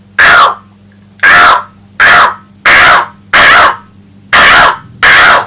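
A man imitating a crow with his voice: seven short, loud caws in quick, even succession, each a raspy call.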